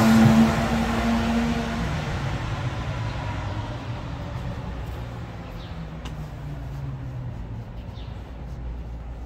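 A motor vehicle passing close by and pulling away, its engine tone fading over the first couple of seconds, followed by the steady low rumble of city street traffic.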